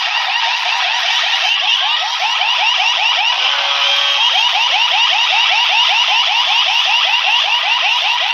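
Loud siren-like electronic effect blasted from a competition DJ sound-system rig: a rapidly repeating whooping sweep, about five a second, broken by a short steady tone about three and a half seconds in.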